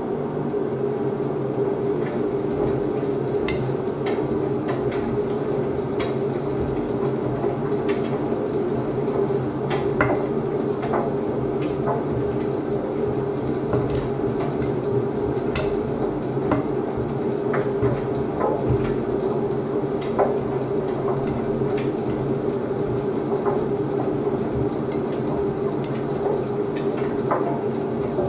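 Beko WDC7523002W washer-dryer running its drying cycle: a steady hum from the machine as the drum turns, with irregular light clicks and knocks as the load tumbles against the drum.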